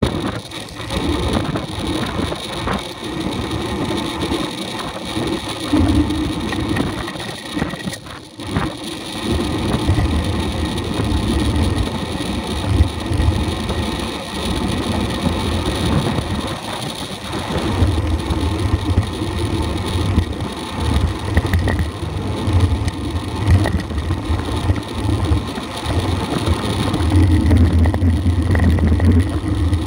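Wind buffeting the microphone of a camera mounted on a moving bicycle, a low rumble that swells and drops every few seconds, over a steady rush of tyre and road noise.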